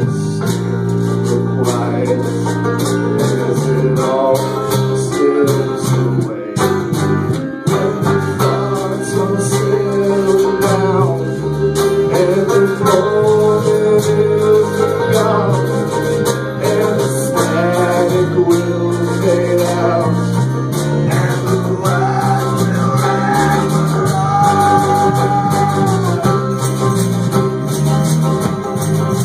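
A folk punk band playing live, with strummed guitars, drums and a sung vocal.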